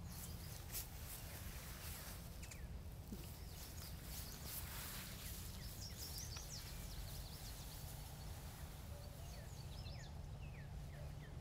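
Outdoor morning ambience: small birds chirping now and then, more often near the end, over a steady low rumble.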